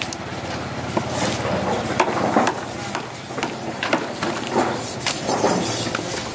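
A knife cutting through fish on a thick wooden chopping block, knocking sharply against the wood about half a dozen times at irregular intervals, over a steady low background hum.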